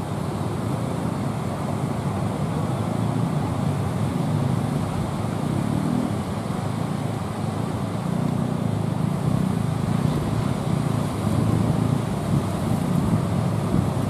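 Heavy surf breaking on the shore as a steady rushing noise, with wind rumbling low on the microphone.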